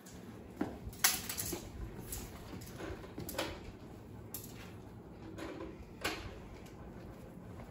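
Scattered light knocks and shuffling from children moving about on a concrete garage floor, with a sharp click about a second in and another about six seconds in, over faint room noise.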